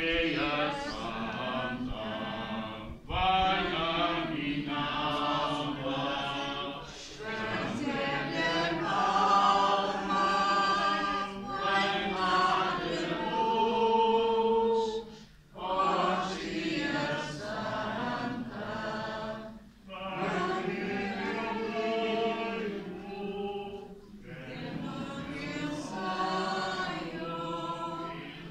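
A group of voices singing a Portuguese Catholic communion hymn in long held phrases, with short breaks between lines.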